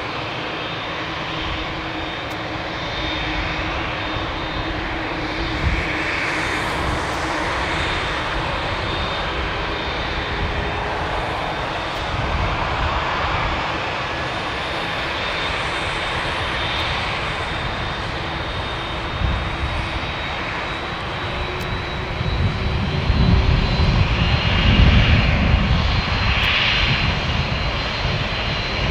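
Boeing 767 twin jet engines at takeoff power during the takeoff roll: a steady broad roar with a faint high whine. A deeper rumble grows louder about three-quarters of the way through.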